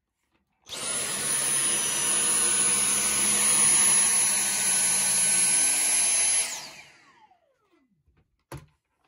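Dyson cordless stick vacuum switched on about a second in, running with a steady high whine as its floor head sucks up cut sequin scraps from a cutting mat. It is switched off a couple of seconds before the end, the whine falling away as the motor spins down, and a short click follows.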